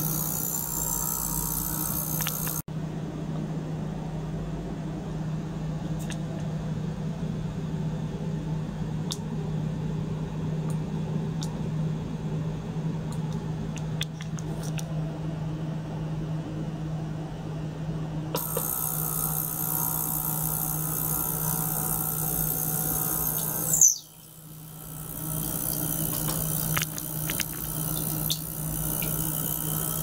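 Small liquid-circulation pump and ultrasonic cleaner running, with a steady low hum under a high hiss. The hiss cuts out suddenly about three seconds in and comes back a little past the middle; a sharp loud click near the end is followed by a brief drop in level, and short rising whistles sound at the very start and end.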